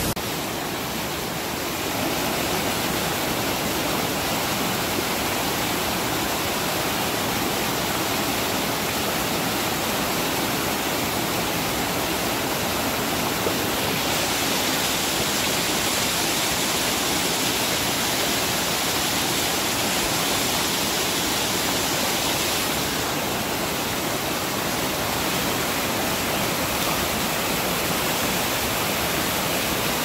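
Heavy rushing water of a mountain-valley waterfall swollen by monsoon rain: a steady, dense rush of falling and churning water.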